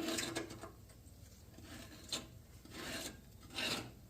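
Gritty scraping of caked gunk being worked off a surface, in irregular rasping strokes about every half second to a second.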